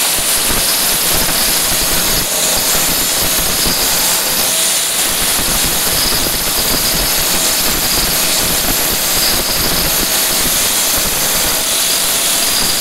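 Handheld angle grinder with a core bit running continuously, cutting a hole through a stone countertop: a steady whine over grinding noise, without a break.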